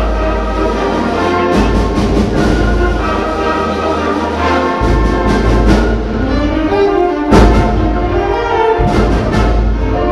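A youth concert band playing: clarinets, French horns, trumpets and other winds in sustained, shifting chords over a steady bass, with a loud accent about seven seconds in.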